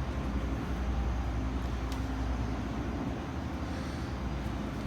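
Steady low rumble of background noise, with no distinct event standing out.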